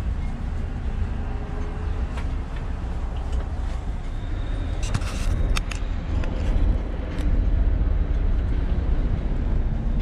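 A catamaran's inboard diesel engine running steadily as a low rumble while the boat manoeuvres out of its berth, with a few sharp clicks and knocks about five to six seconds in.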